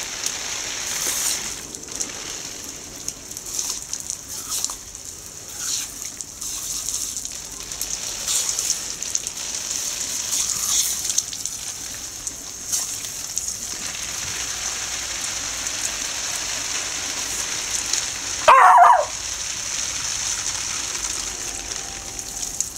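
Garden hose sprinkler spraying water with a steady high hiss while an Irish Terrier puppy snaps at the jets. Near the end the puppy gives one loud, short bark that falls in pitch.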